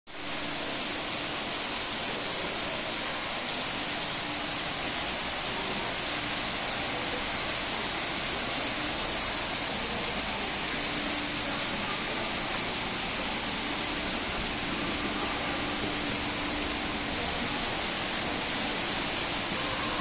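Indoor wall waterfall: water pouring and splashing down a stone-faced wall into a pool, a steady rushing hiss. A faint low hum comes and goes beneath it.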